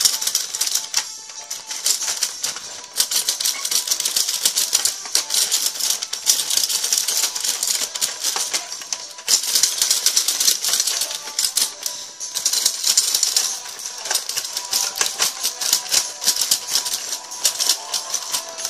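Mattel Rock 'Em Sock 'Em Robots boxing: a dense, rapid run of plastic clacks as the two robots' arms punch and strike each other.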